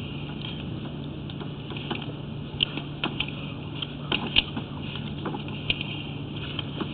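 A sewer inspection camera is being pushed along the pipe, making scattered clicks and knocks over a steady low hum. The knocks come thickest in the middle of the stretch.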